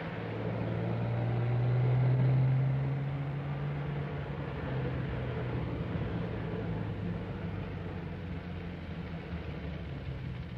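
Jaguar car's engine running steadily as the car drives, its note swelling to its loudest about two seconds in and then holding a little lower.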